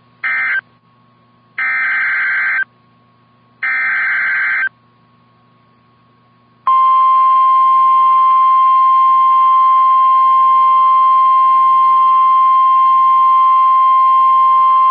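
Emergency Alert System SAME header: three bursts of screeching digital data tones, the first one short. About seven seconds in, the loud, steady attention tone of a weather-radio alert starts and holds, signalling that a new warning follows.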